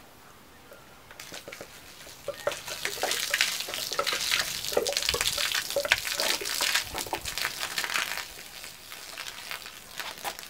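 Screen wash pouring in a stream from an upturned washer reservoir bottle and splashing onto block paving, a crackling hiss like frying. It builds up about two seconds in and eases off about eight seconds in as the flow thins.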